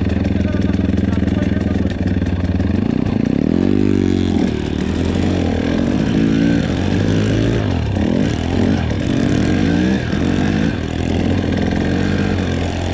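Pit bike's four-stroke single-cylinder engine idling steadily, then, about three seconds in, revving up and down over and over as it is ridden through deep snow.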